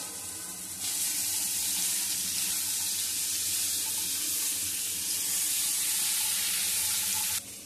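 Bottle gourd stems and potato pieces sizzling in hot oil in a wok as they are stirred: a steady hiss that starts abruptly about a second in and stops abruptly near the end.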